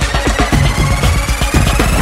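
Background electronic dance music: a steady, fast drum beat under one tone that rises slowly in pitch, a build-up.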